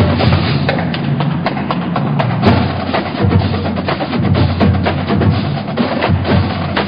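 Background music carried by drums and percussion, with many quick sharp hits over a steady low beat.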